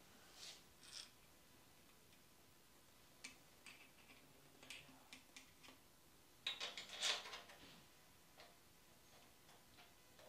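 Faint, scattered metallic clicks and clinks of engine valvetrain parts, rocker arms and pushrods, being handled and fitted by hand. There is a brief clattering cluster about two-thirds of the way through.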